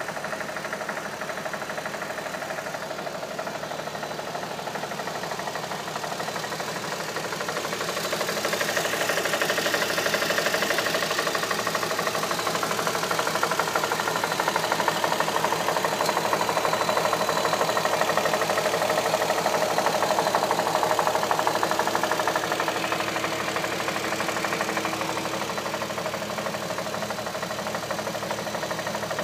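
2007 Audi A3 3.2's VR6 engine running with a fast, steady ticking knock riding on it, which the owner calls engine knock. The sound grows louder about a third of the way in and eases back near the end.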